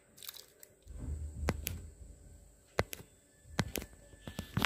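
Thick curd being added to a steel mixer-grinder jar: soft squishing and handling noise, with several sharp clinks against the jar, the loudest cluster near the end.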